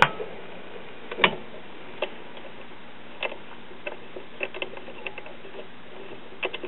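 A 1930s Westinghouse WR209 tube radio on its near-empty shortwave police band, giving a steady hiss and low hum with scattered irregular clicks and crackles; sharper clicks at the start and about a second in.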